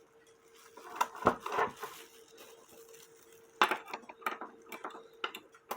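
Small metal clicks and clinks from hands working fine wire and parts on a cuckoo clock movement, in two clusters about a second in and again from around the middle on, over a faint steady hum.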